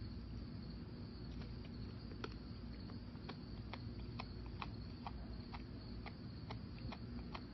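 A wallaby chewing grass: faint, irregular crisp clicks a few times a second over a low steady background.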